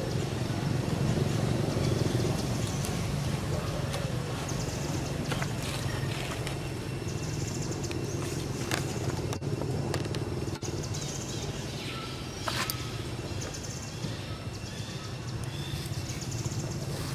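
A steady low motor hum, with short high chirps every few seconds and a few brief clicks over it.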